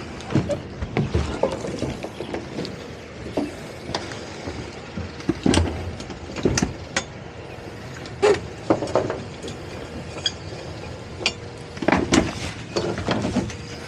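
Twin outboard motors idling at low speed, a steady low hum under irregular knocks and clunks of gear and tow line on the boat's deck.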